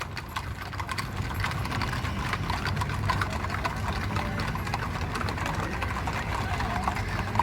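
A group of horses passing at a walk, their hooves clip-clopping in a dense, overlapping patter of clicks, over a steady low rumble.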